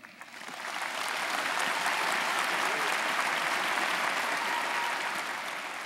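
A large audience applauding. The clapping swells over the first second, holds steady, and starts to fade near the end.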